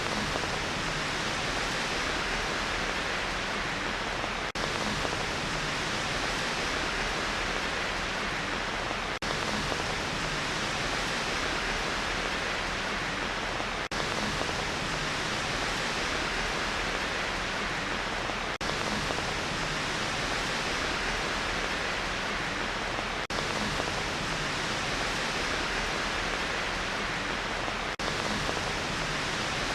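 Steady rain white noise: an even, unbroken hiss with no separate drops standing out, and a brief dip in level about every four and a half seconds.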